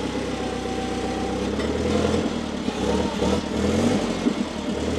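Forklift engine running with the throttle pressed; the engine speed shifts up and down about halfway through.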